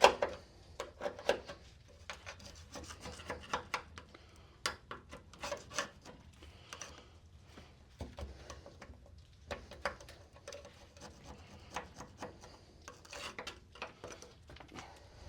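Hand tools scraping and knocking on the metal parts of an old Volkswagen chassis being dismantled, in irregular taps, clicks and short scrapes.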